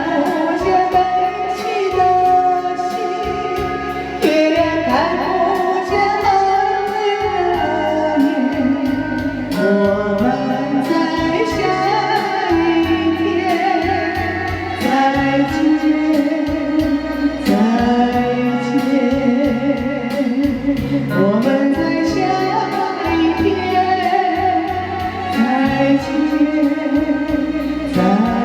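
A slow Chinese pop song playing: a melody carried by a wavering, voice-like line over steady accompaniment, with no words that can be made out.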